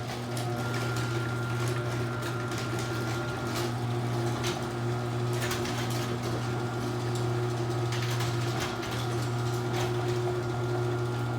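LiftMaster chain-drive garage door opener running as it moves the door: a steady motor hum with scattered light clicks and rattles from the chain drive.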